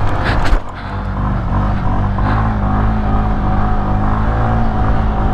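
Honda SH 125 scooter's single-cylinder four-stroke engine held open as the rider lifts the front wheel in a wheelie, a steady drone. There are a couple of short knocks about half a second in.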